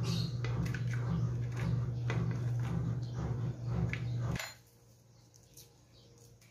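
Soft clicks and rustles of pieces lifted from a plastic container and dropped onto a bamboo rack in a clay pot, over a steady low hum that cuts off suddenly about four seconds in.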